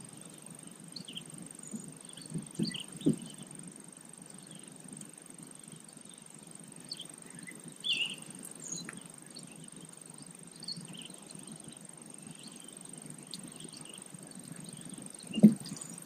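Outdoor morning ambience: scattered short bird chirps over a steady high insect drone, with a few low thumps, the loudest one near the end.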